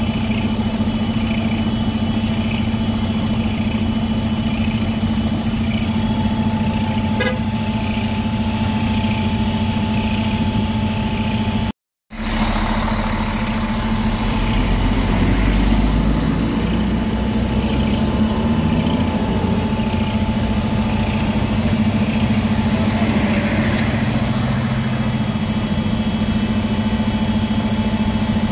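Vehicle engines running in traffic at a bus terminal, with a steady engine hum throughout. About halfway in, the sound drops out briefly; just after that, a heavy engine's low rumble swells for a few seconds.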